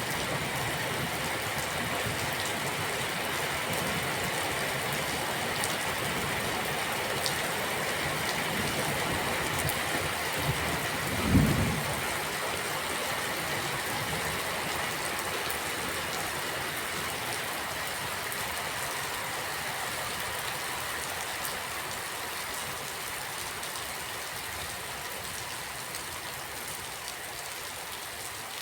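Steady rain falling, a continuous hiss of drops that eases slightly toward the end. About eleven seconds in comes one short, low thump.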